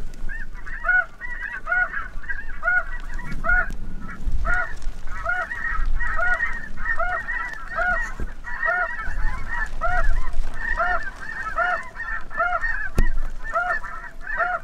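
Snow geese calling: a dense chorus of high, yelping honks, one call repeating evenly a little under once a second. There is a single sharp click near the end.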